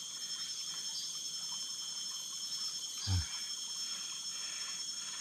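Steady high-pitched drone of forest insects, several unbroken shrill tones held throughout, with one soft low thump about three seconds in.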